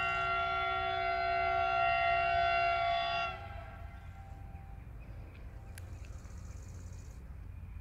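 Train horn sounding one long chord of several steady tones that cuts off about three seconds in, followed by a low steady rumble.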